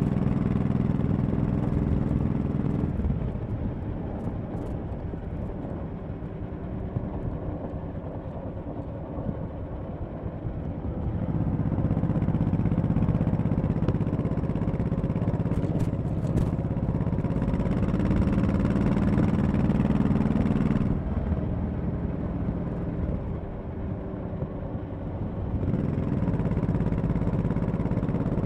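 Honda Shadow 1100 V-twin motorcycle engine running while riding. It pulls under throttle, goes quieter for several seconds from about three seconds in, and pulls again from about eleven seconds in with a slight rise in pitch. It drops back about twenty-one seconds in and picks up again near the end.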